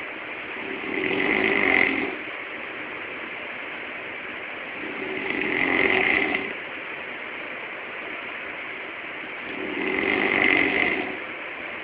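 A man snoring loudly while asleep: three long snores about four seconds apart, each swelling and then cutting off sharply.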